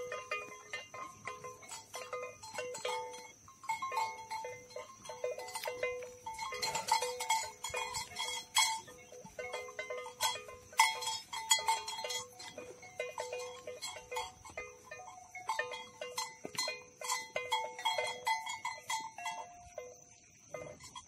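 Bells hung on the necks of a herd of mithun clanking irregularly as the animals walk, many short ringing clanks overlapping throughout.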